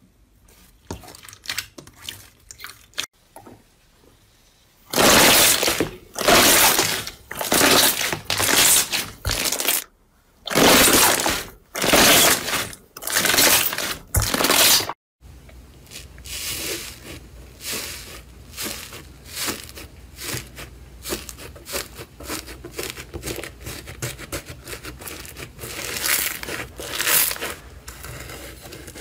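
Hands squeezing and pressing slime. First come scattered sticky clicks, then, from about five seconds in, a run of loud squelching bursts about a second each. These stop suddenly about halfway, and dense fine crackling follows as a thick, textured slime is pressed.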